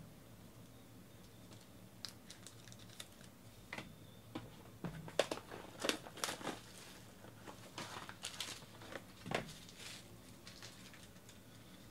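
Shiny plastic shrink-wrap being torn and crumpled off a sealed box of trading cards: an irregular string of sharp crinkles and crackles, thickest in the middle, with one more loud crackle near the end.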